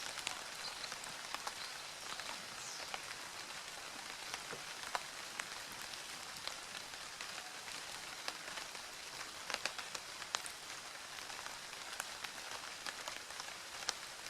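Steady rain, quite loud, falling as an even hiss with many sharp drop ticks scattered through it, a few louder ones clustered about two-thirds of the way in.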